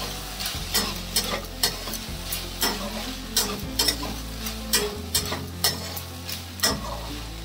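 Metal spatula stirring and scraping dry-fried okra around a metal kadhai, about two scrapes a second, over a light sizzle from the pan; the okra stir-fry is fully cooked.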